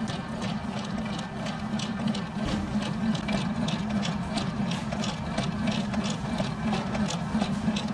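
A motor-driven machine running steadily, with a hum under a regular clatter of about three clicks a second.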